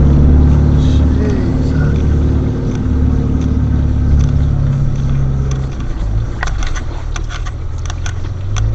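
Land Rover Discovery's engine droning low and steady as it wades slowly through deep floodwater, heard from inside the vehicle, with water rushing along the body; the engine note drops about six seconds in. A scattered run of sharp clicks and knocks fills the last few seconds.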